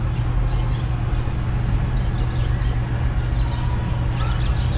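Steady low background hum, with faint short high chirps now and then.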